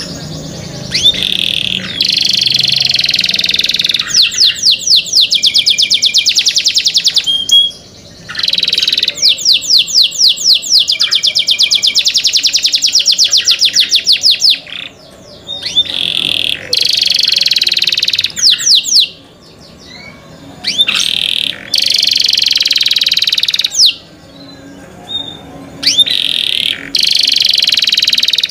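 Domestic canary singing: several long phrases of fast, rapidly repeated notes forming trills and rolls, separated by short pauses.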